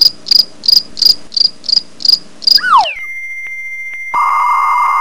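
Cricket-chirp sound effect, an even high chirp about three times a second, the classic awkward-silence gag. Near the middle it breaks into a quick falling glide and a thin steady electronic tone, joined about a second later by a louder buzzy tone, like a lost-signal or buffering effect.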